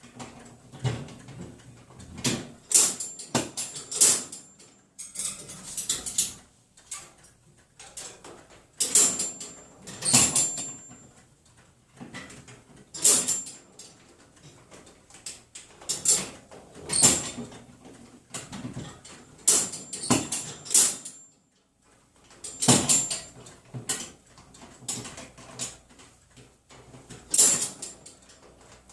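Wire cage doors banged and rattled over and over: a long run of metallic clanks, each with a short ring, coming in clusters every second or two.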